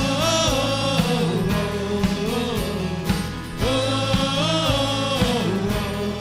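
Band playing the intro of a contemporary Christian song: a wavering lead melody over sustained chords and a steady beat.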